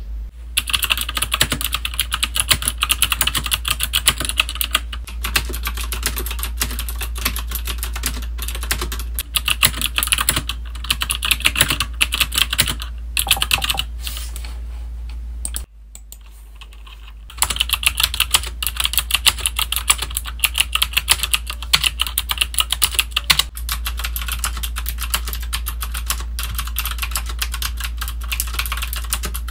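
Fast typing on an AZIO IZO mechanical keyboard with round typewriter-style keycaps: a dense, continuous run of key clicks, with a short pause about halfway.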